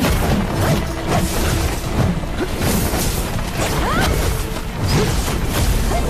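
Dramatic background music mixed with fight sound effects: repeated crashes and impacts, with a quick rising swoop about four seconds in.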